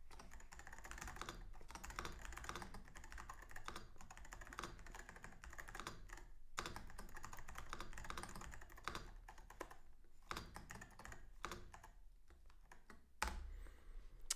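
Typing on a computer keyboard: a quick, uneven run of key clicks, with one louder keystroke near the end.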